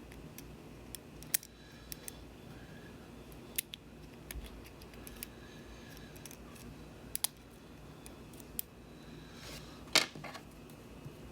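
Lock picks and a tension wrench working a Euro profile cylinder lock held in hand: scattered small metallic clicks and light scraping, with the sharpest click near the end.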